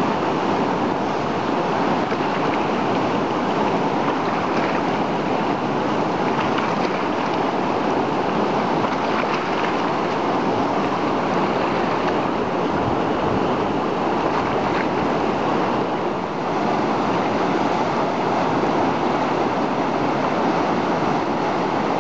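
Whitewater of a river rapid rushing steadily: an even, unbroken wash of churning water.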